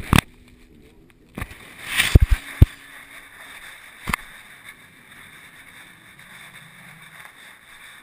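Handling noise on an action camera's waterproof housing: a few sharp knocks and bumps, the loudest cluster about two seconds in and one more about four seconds in, then a low steady hiss.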